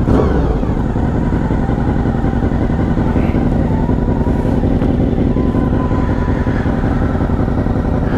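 Honda VFR750 Interceptor's V4 engine running steadily at low revs, the pitch holding even throughout.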